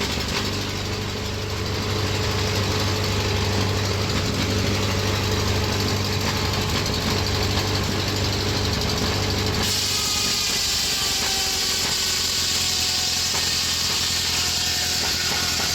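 Sawmill powered by a 1931 Ford Model A four-cylinder engine running steadily under its governor, driving the saw through a flat belt. About ten seconds in the sound changes abruptly: the low engine note drops back and a higher hiss with faint gliding whines takes over.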